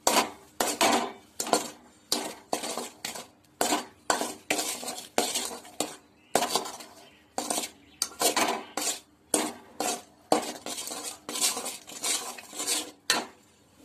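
Stainless-steel spoon scraping and clinking against a pan while stirring a thick red-banana halwa mixture, in quick repeated strokes of about two a second.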